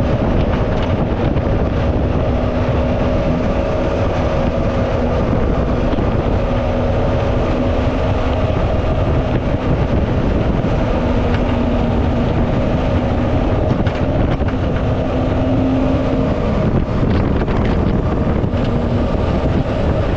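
Jet boat under way at speed on a river: a steady engine drone with the rush of water and wind over the hull.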